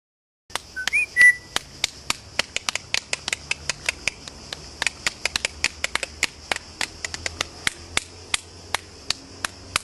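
A short rising whistle about a second in, then a steady run of sharp clicks, about four a second.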